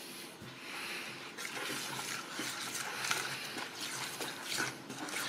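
Metal spoon stirring a wet, runny batter in a stainless steel bowl, with soft squelching and small irregular clicks of the spoon against the bowl, as a heap of dry cassava starch is worked in to thicken it.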